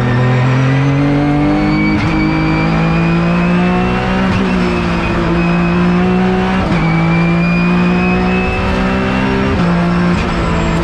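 Porsche 911 GT3 Cup race car's flat-six engine at full effort, heard from inside the cockpit, its pitch jumping about four times as the driver changes gear, with a short crack at each shift.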